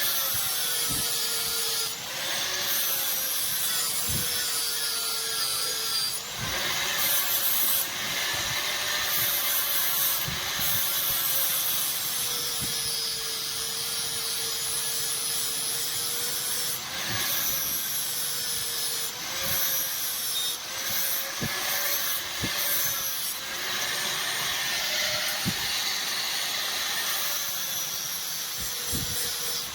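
Electric grinder running continuously against steel, its motor pitch dipping and recovering as pressure on the work changes, with a harsh high grinding noise and a few light knocks.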